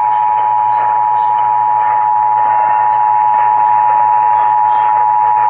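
Emergency Alert System attention signal: two steady tones sounding together, just under 1 kHz, broadcast over radio with a hiss beneath, cutting off abruptly at the end. It marks a Required Monthly Test of the Emergency Alert System.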